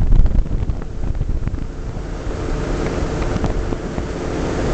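Airflow buffeting the microphone of a camera fixed to a hang glider in flight, a loud gusty rush, strongest in the first second and a little lower after that, with a faint steady hum underneath.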